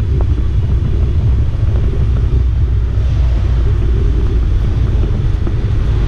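Steady low rumble of road and wind noise from a camera travelling along a street.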